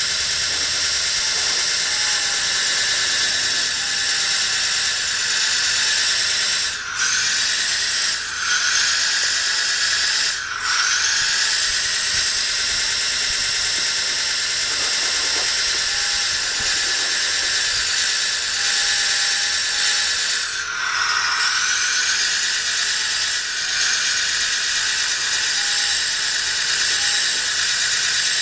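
A small high-speed electric motor running with a high whine and hiss. It briefly slows and winds back up about seven seconds in, again around ten seconds, and once more near twenty-one seconds.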